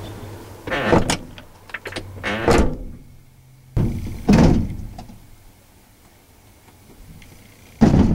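Four heavy thunks a second or more apart, the loudest about four seconds in. A low steady hum runs under the first two and cuts off just before the loudest one.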